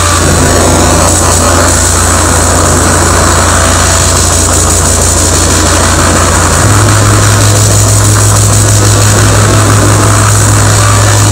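Loud experimental electronic noise music played live over a PA: a heavy, steady low drone under a dense wash of hiss and distortion. The drone steps up in pitch just past halfway.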